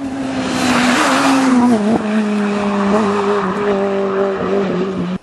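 A Vauxhall rally car's engine running hard as the car drives past close by, with tyre and road noise loudest in the first couple of seconds. The engine note steps down in pitch about two seconds in, then holds steady.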